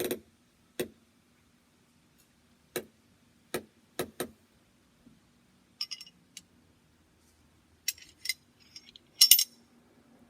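Glock pistol parts being handled on a work surface: a string of separate sharp clicks and taps, then quick clusters of brighter metallic clicks, the loudest near the end.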